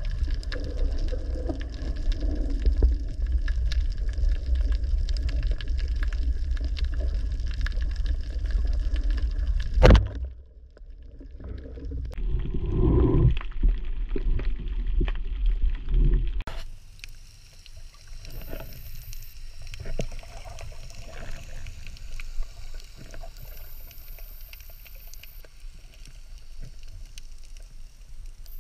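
Muffled underwater sound picked up by a camera in a waterproof housing: a steady low rumble of moving water with small knocks from the diver's gear. A single sharp knock comes about ten seconds in, and the sound becomes quieter and thinner from about sixteen seconds on.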